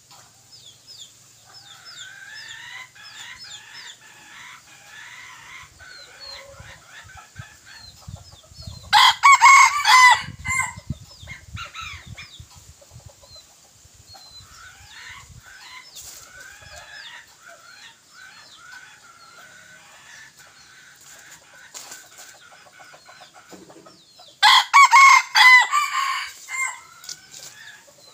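Red junglefowl roosters: two loud crows about fifteen seconds apart, with softer chirping calls throughout.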